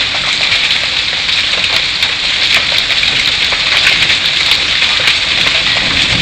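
Heavy hail pelting down during a thunderstorm: a loud, steady, dense clatter of countless small hailstone impacts.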